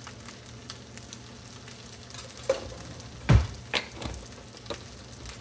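Fried rice sizzling steadily in a frying pan, with a few sharp knocks from utensils or handling. The loudest knock comes a little past halfway.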